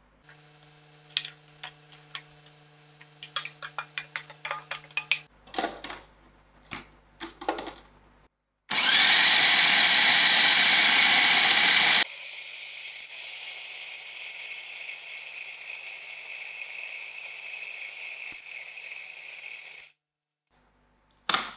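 Electric food processor motor running in two stretches, about eleven seconds in all, grinding chicken mince with spring onions; the first stretch is louder, the second steadier and thinner before it stops. Before the motor starts there are scattered clicks and knocks as the bowl is loaded and the lid and pusher are fitted.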